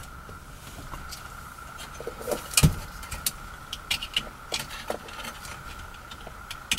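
Plastic wiring-harness connectors and loose wires clicking, knocking and rustling as the head unit's harness is plugged into the car's factory radio connector behind the dash, with one louder knock about two and a half seconds in.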